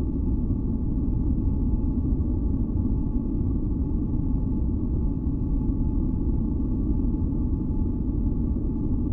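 Steady, deep rumbling noise, strongest in the bass, with a few faint sustained tones above it: a synthesized masking-noise sleep track.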